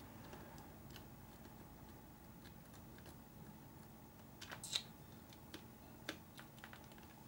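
Faint, scattered clicks and taps of small RC car parts and tools being handled during assembly, with a sharper cluster of clicks about four and a half seconds in.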